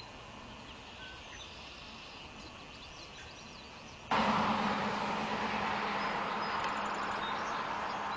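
Quiet outdoor background with a few short high bird chirps. About four seconds in, it cuts abruptly to a much louder, steady rushing noise with a low hum that slowly fades.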